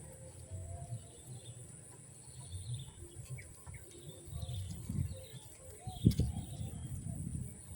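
Faint bird calls: scattered short chirps and coos over a steady high-pitched drone, with low rustling and one sharp thump about six seconds in.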